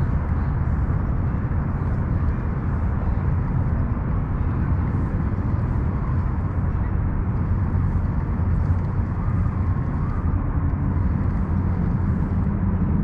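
A steady low rumble with a faint hum in it, unchanging throughout.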